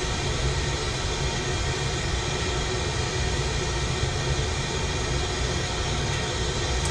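Glassblower's bench torch flame burning with a steady rushing noise, unbroken as the glass tube is turned in it.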